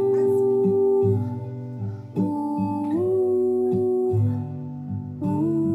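Background music playing: long held notes that step to a new pitch about once a second over a low, pulsing accompaniment.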